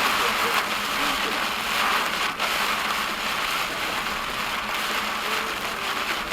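Heavy cloudburst rain hitting a car, a dense, steady hiss of drops on the roof and windshield.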